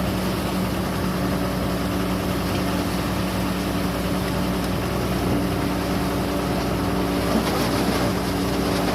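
Heavy construction machinery engine running steadily at a constant pitch, an even drone with no change in speed.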